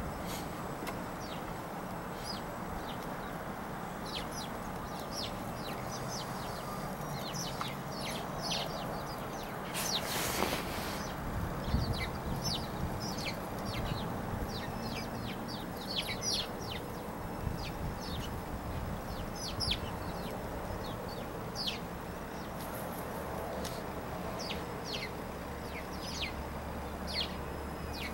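Small birds chirping: many short, high, falling notes scattered throughout, over a steady low background rumble. A brief rush of noise about ten seconds in.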